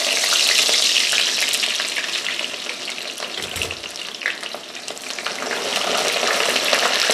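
Sliced onions sizzling and spattering in hot oil in a metal pan, loudest just after they go in, then easing. Near the end they are stirred with a metal slotted spoon.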